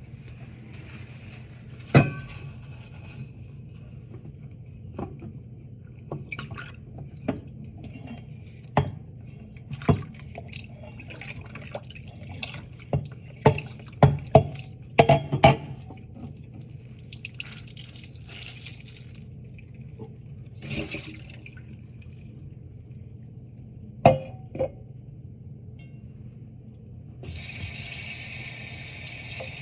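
Dishes and glassware knocking and clinking irregularly as they are handled in a kitchen sink during hand-washing. Near the end the tap is turned on and water runs steadily.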